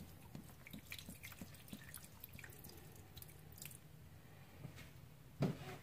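Guinness stout being poured into a slow cooker over a corned beef, the liquid faintly splashing and dripping in many small ticks. A thump comes near the end.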